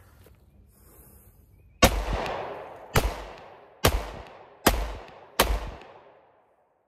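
Five shots from a Glock 43 9mm pistol firing Federal American Eagle 70-grain indoor practice rounds, fired just under a second apart. Each shot has a trailing echo that dies away.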